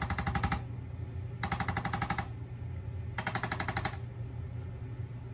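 A handheld percussive device rattling out rapid, evenly spaced taps in three short bursts, each under a second, over a steady low hum.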